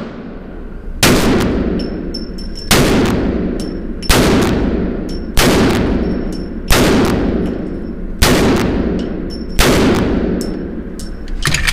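Desert Eagle .50 AE pistol with an integral muzzle brake fired seven times at a steady pace, about one shot every second and a half, each shot leaving a long echoing tail. A quick run of small clicks follows near the end.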